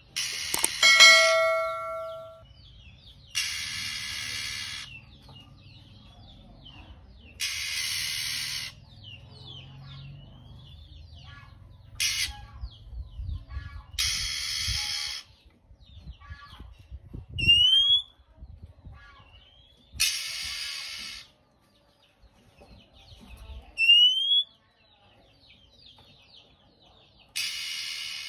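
Male oriental magpie-robin giving a series of harsh, hissing rasps, each about a second long and coming every few seconds. Between them it gives short rising whistles, over faint chirping. A bell-like chime rings briefly about a second in.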